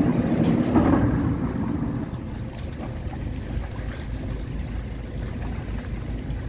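A boat's motor running steadily under way, with water churning in the wake and wind buffeting the microphone. It is a little louder in the first second or two, then holds even.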